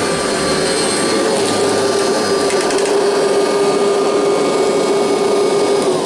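Vintage Kirby Heritage upright vacuum cleaner running steadily with a motor hum and whine. It is switched off right at the end, and its motor begins to wind down.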